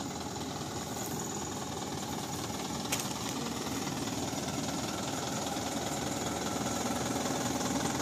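Diesel truck engine running steadily at idle with a knocking clatter, growing slightly louder toward the end.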